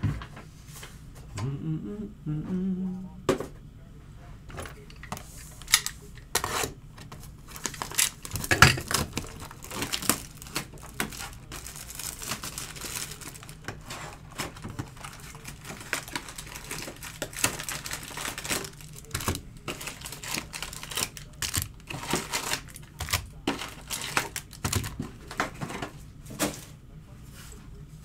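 A sealed 2022 Bowman Jumbo hobby box being opened and its foil-wrapped card packs handled and laid out on a table: a steady run of crinkling and rustling with light taps and clicks.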